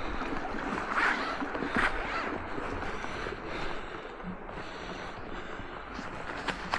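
Footsteps crunching in fresh snow, with a few louder crunches about one and two seconds in, over a steady rushing background.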